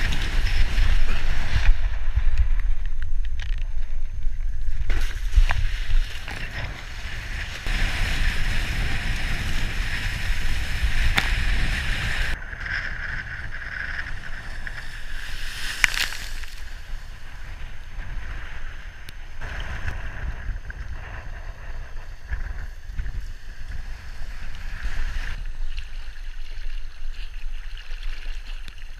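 Wind rumbling on the microphone and water rushing under a kiteboard as it rides across choppy water, strongest in the first several seconds and easing after about twelve seconds. A single sharp hit about sixteen seconds in.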